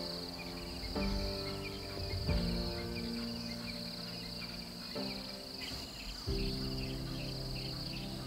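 A steady, high insect chorus with background music of held chords that change about every second or so.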